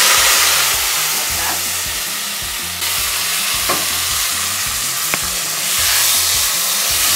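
Pieces of meat with their broth frying in hot oil and browned onions in an aluminium sufuria (cooking pot), sizzling steadily while a wooden spoon stirs and scrapes through them.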